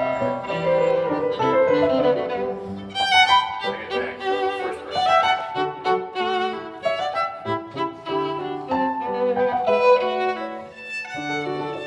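Background music led by a violin, playing a lively melody of short notes.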